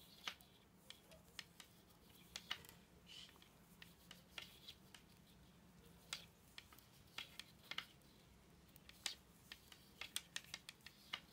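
Knitting needles clicking and tapping against each other as stitches are knitted: faint, sharp, irregular clicks over a faint low hum.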